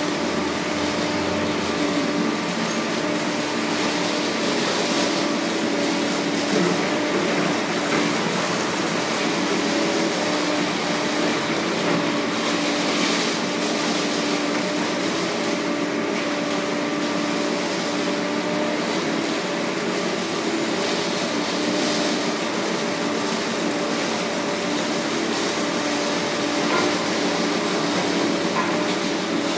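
City street traffic over a steady mechanical hum whose constant drone does not change.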